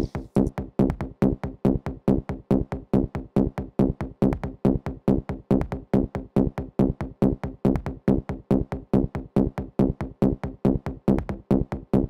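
Electronic dance music with no vocals: a rapid chopped synth pulse, about four to five short notes a second, on a steady low tone.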